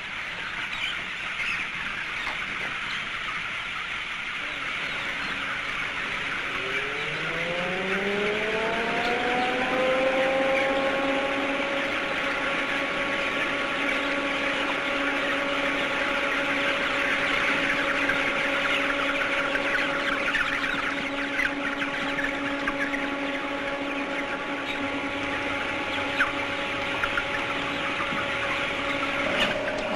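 A large flock of young chickens cheeping all at once. About six seconds in, a machine motor spins up with a rising hum, then runs at a steady pitch under the cheeping.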